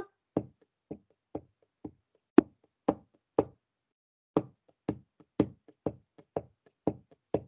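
Sharp knocks tapping out a steady beat, about two a second, with one beat skipped near the middle: time being kept for the pupils' turn to sing two lines back.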